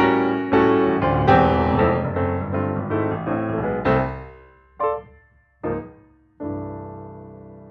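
Piano music: a busy stretch of notes, then two short stabbed chords and a final chord held and dying away.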